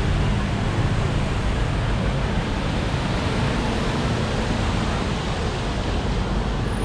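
Steady road traffic noise, a continuous even rumble and hiss.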